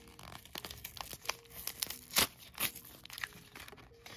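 Foil wrapper of a Magic: The Gathering booster pack crinkling and crackling as it is handled, in a string of short, sharp crackles, the loudest about two seconds in.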